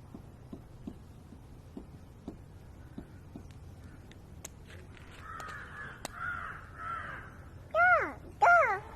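Crow-like caws: three hoarse caws about five seconds in, then two much louder, higher caws that rise and fall in pitch near the end.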